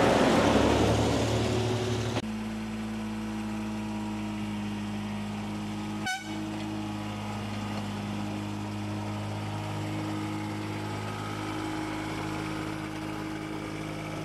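A diesel-hauled passenger train rolling past, loud and rushing, then about two seconds in an abrupt change to a small narrow-gauge diesel locomotive's engine running at a steady idle, with one short click about six seconds in.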